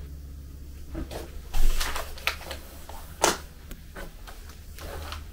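Vacuum pump running with a steady low hum, holding vacuum on a resin infusion bag. The plastic bagging film crinkles and rustles several times, loudest around a couple of seconds in.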